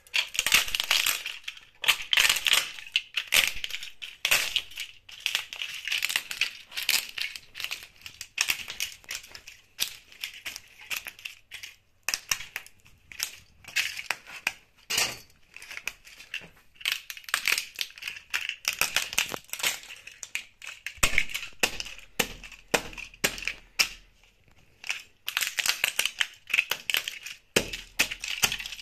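Plastic scale-model aircraft being crushed underfoot by wedge-heeled espadrille sandals: dense, irregular runs of sharp cracking, snapping and crunching of plastic parts and fragments, with a brief lull about five seconds before the end.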